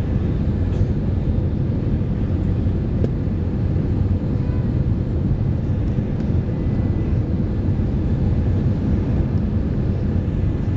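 Steady low rumble of airflow and CFM56 engines heard from inside the passenger cabin of an Airbus A320-214 in flight, with a faint steady whine above it.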